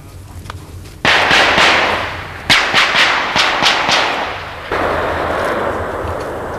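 A loud rushing noise starts suddenly about a second in. In the middle comes a quick run of about six sharp cracks, roughly three a second, and then it settles into a steadier rush.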